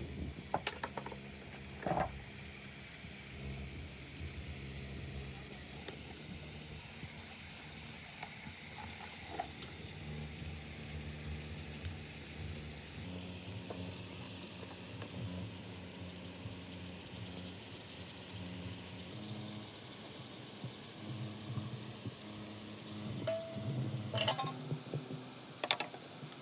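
Chicken pieces frying in a wok over a wood fire, a steady sizzle, with a few sharp knocks near the start and again near the end.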